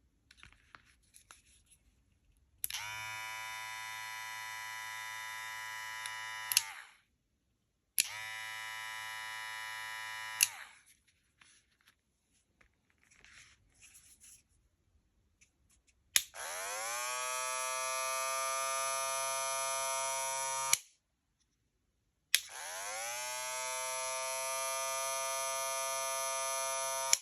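Two hair clippers, a Wahl Vapor and a JRL Onyx, each switched on and off twice with a click of the switch. The first pair of runs is a steady buzz that starts at full pitch. The second pair, about halfway through, is louder and rises in pitch as the motor spins up before holding steady.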